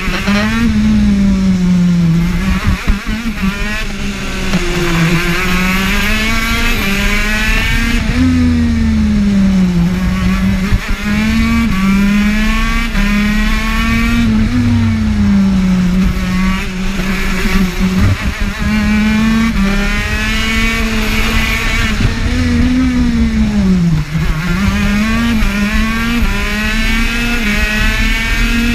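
TM KZ10B 125cc two-stroke shifter kart engine at racing speed, its revs climbing and then dropping again every few seconds as the kart accelerates and brakes through the corners.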